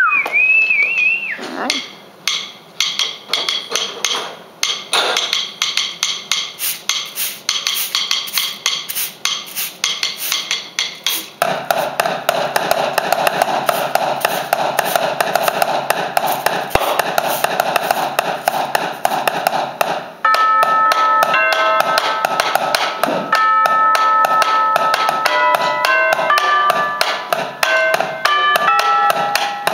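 Student percussion piece for sticks and tubular chimes. It opens with a short whistle-like tone, then rapid sharp stick taps and clicks, and then a steady dense noise for several seconds. From about two-thirds of the way in, tubular chimes ring clear notes of several pitches over continuing taps.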